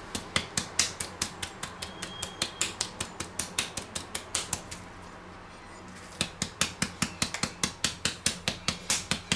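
Paprika spice jar shaken over a bowl of onions: quick, even clicks about four a second, in two runs with a short pause in between.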